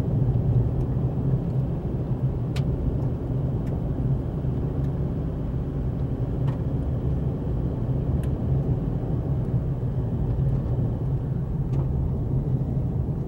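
Isuzu MU-X SUV driving along a gravel dirt road, heard from inside the cabin: a steady low rumble of engine and tyres on gravel, with a few faint sharp clicks scattered through.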